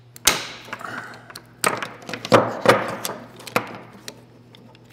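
Sharp plastic knocks and clicks from handling a gooseneck work lamp's clamp against a wooden workbench: about five separate hits, the loudest a little past halfway.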